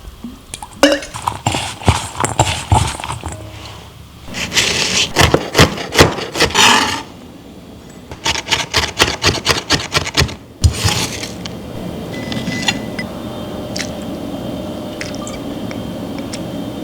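Kitchen prep: three runs of quick knife chops on a cutting board, the last at about four strikes a second, then a steady hiss from about eleven seconds in.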